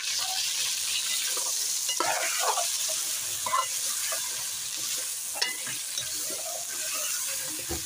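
Chicken pieces sizzling as they fry in ghee in a metal karahi, with a steady hiss as the chicken's own water cooks off. A metal ladle stirs and turns the pieces, scraping and clinking against the pan now and then.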